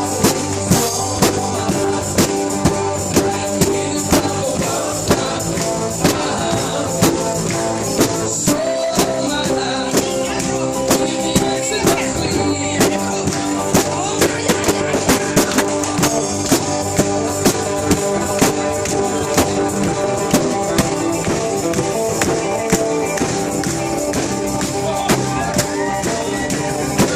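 A band playing acoustic, unplugged music live, with singing over a steady beat of percussion hits about twice a second.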